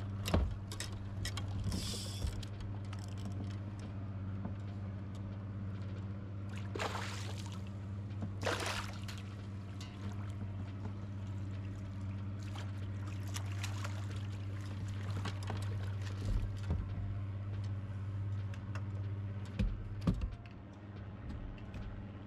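Water splashing as a hooked bass thrashes at the surface, with two loud splashes about seven and eight and a half seconds in, then water streaming off a landing net. A steady low hum runs underneath, and a couple of knocks come near the end.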